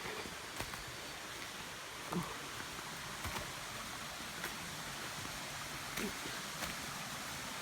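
Steady rushing of a waterfall not yet in view, with a few scattered soft knocks.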